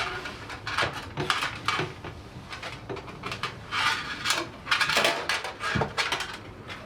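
Irregular clattering and scraping of a fish tape being pushed and worked through the cavities of a van's sheet-metal body.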